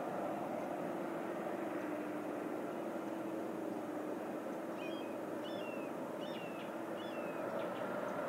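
Steady outdoor background rumble with a faint low hum. From about five seconds in, a small bird chirps briefly several times.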